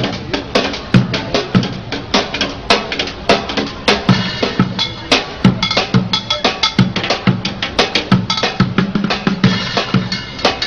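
Street drummer playing upturned plastic buckets and a metal lid with drumsticks: a fast, dense run of strokes, with deep bucket thuds about every half second and sharper cracks and clanks between.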